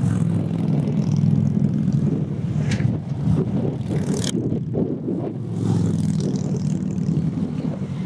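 Motorcycles, mostly big cruiser and touring bikes, riding past one after another in a group; a deep, steady engine rumble that dips briefly about halfway through, then builds again as more bikes come by.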